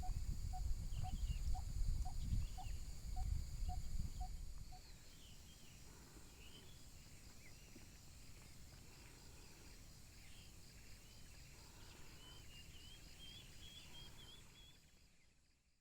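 Outdoor nature ambience. A low rumble with a regular call about twice a second runs for the first four seconds, then it turns quieter, with birds chirping over a steady high insect buzz, and fades out at the end.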